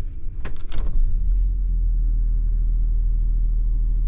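Detroit Diesel Series 60 inline-six diesel cranking and catching within about a second, then settling into a steady low idle. This is its first start after an oil change, and the oil pressure comes up quickly.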